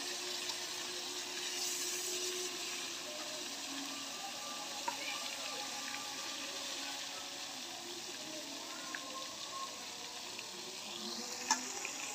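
Koi fish (climbing perch) frying in hot oil in an iron wok: a steady sizzle, with a few light clicks of the metal spatula as the fish are turned over.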